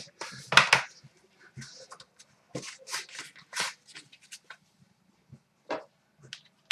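Upper Deck The Cup hockey card box being opened by hand: the lid is lifted off and the small inner card box handled, giving a string of short, irregular cardboard rustles and scrapes.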